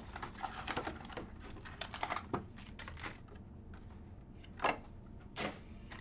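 Hands opening a cardboard trading-card box and handling its foil packs: scattered light clicks, taps and rustles, with two sharper clicks near the end.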